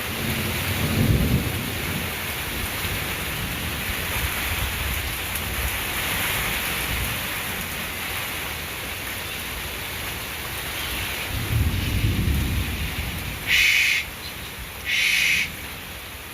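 Steady rain falling in a thunderstorm, with thunder rumbling low about a second in and again around twelve seconds. Near the end come three short, loud, harsh high-pitched bursts about a second and a half apart.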